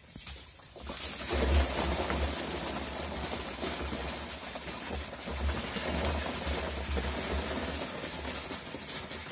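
A crateful of small fish pouring out of a plastic crate into a plastic drum: a steady, dense rush of fish sliding and dropping that starts about a second in and keeps going.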